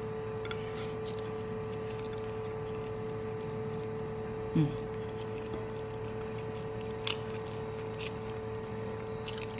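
A steady electrical hum, with soft eating sounds over it: instant noodles slurped in and chewed, a brief murmur from the eater about four and a half seconds in, and a few faint clicks near the end.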